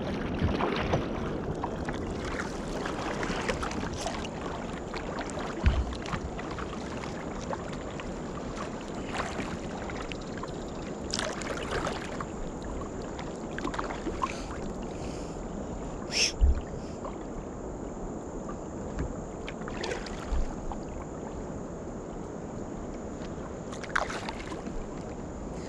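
Steady wash of river water moving along a kayak's hull, with a few brief sharp sounds from the boat now and then.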